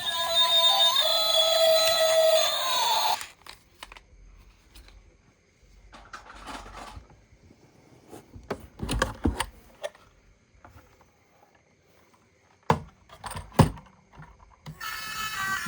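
Background music that stops about three seconds in, followed by a quiet stretch of scattered clicks and scrapes as toy vehicles and their packaging are handled. The music starts again near the end.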